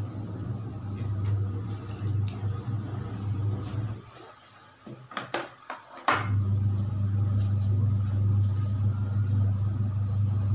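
A steady low hum with one constant pitch, cutting out for about two seconds in the middle, where a few short clicks or knocks are heard, then resuming.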